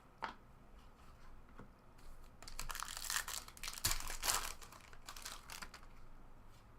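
Trading card pack wrapper and cards being handled: crinkling and rustling in several bursts about halfway through, with a light knock among them.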